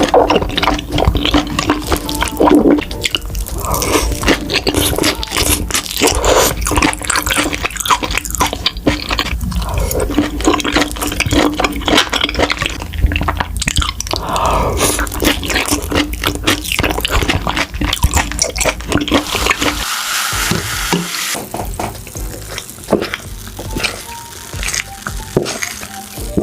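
Close-miked eating of beef large intestines: wet, sticky chewing with many small smacks and squelching clicks.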